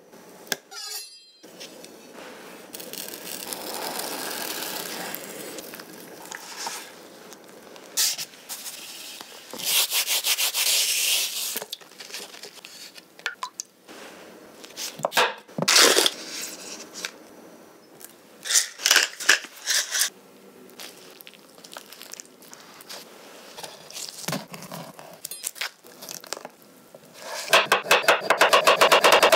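Close-miked food-prep sounds on a bamboo cutting board: gloved hands rubbing and handling a raw salmon fillet, knife scrapes and cuts, and the skin being peeled off an avocado. Near the end comes a quick, even run of knife strokes, the avocado being sliced thinly against the board.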